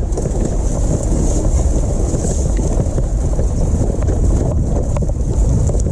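Wind buffeting the microphone over the rumble of an all-wheel-drive e-bike and its towed cart riding along a muddy trail, with many small clicks and rattles.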